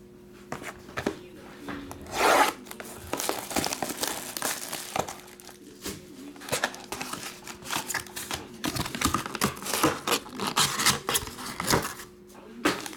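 Hands tearing open a sealed trading-card box and crinkling the black foil card pack inside. There is a loud tear about two seconds in, then a run of short rustles and crinkles that gets busier near the end.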